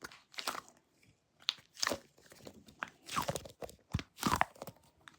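Sticky NeeDoh squishy toy being squeezed and pulled in the hands, giving irregular crackling, crunchy squishing sounds.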